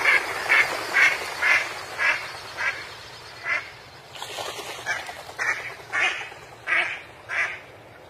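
Flock of flamingos calling: a run of short, goose-like honks, about two a second, over a steady hiss, thinning out and growing quieter toward the end.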